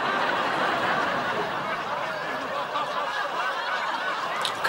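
Studio audience laughing together, a crowd of many overlapping laughs that swells just before and holds at a steady level for several seconds.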